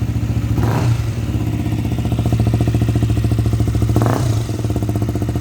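KTM Duke 125 single-cylinder engine idling steadily through an aftermarket exhaust, with two brief bursts of noise, one about a second in and one near the end.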